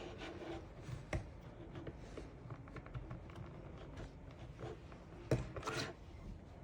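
Small plastic clicks and taps, irregular, with a louder cluster about five seconds in: a plastic toy crown being handled and fitted onto a fashion doll.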